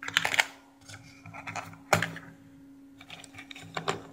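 Unpacking sounds: hands handling a cable and probe lead in a box's moulded plastic tray, with light clicks, taps and rustles and one sharper click about two seconds in.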